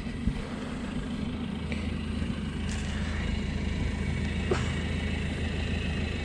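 Ford Ranger pickup's engine idling steadily, with a short knock just after the start and a faint tick about four and a half seconds in.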